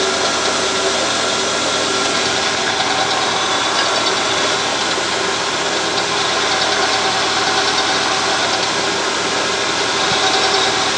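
Milling machine running steadily, its spindle turning a twist drill that bores a hole into a metal base plate.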